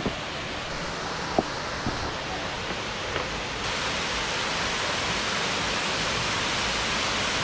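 Waterfall rushing as a steady hiss, growing louder a little over halfway through. A few footsteps click on loose stones in the first half.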